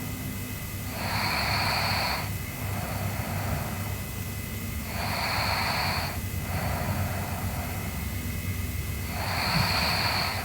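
A sleeping girl snoring: a loud, noisy breath about every four seconds, three in all, with softer breaths between them over a steady low rumble.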